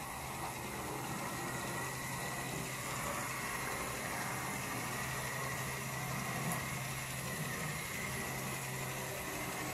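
Small electric motor of an HO scale switcher locomotive running on 9-volt battery power as it rolls along the track: a steady hum with a faint high whine.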